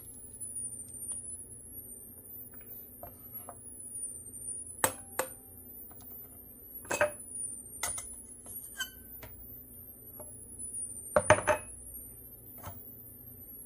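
Spoon clinking and tapping against a jar and canning funnel as chopped onions are spooned in: irregular sharp clinks, with a quick cluster of the loudest about eleven seconds in.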